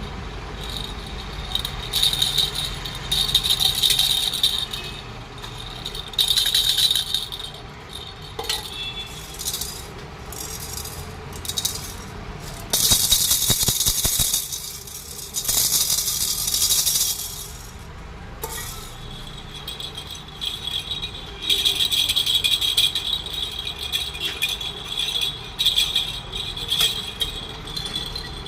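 Rattles shaken in a series of bursts, each from about a second to several seconds long with short lulls between; some are brighter and more jingly, others, around the middle, a harsher hissing shake.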